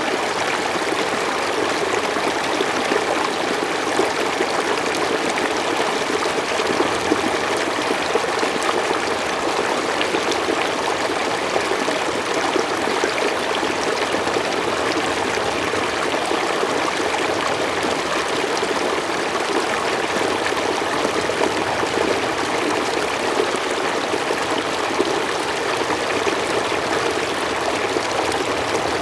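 Mountain stream flowing steadily over rocks, a continuous rushing and trickling of water.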